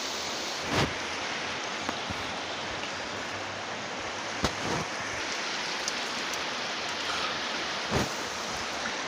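Steady rush of flowing river water, with a few short, sudden sounds standing out about a second in, near the middle and near the end.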